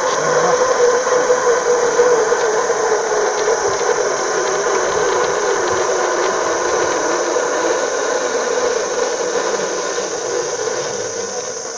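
Motor-driven cable winch of a goods ropeway running steadily, hauling a carrier of apple boxes up the wire rope; the noise fades over the last couple of seconds as the load nears the top station.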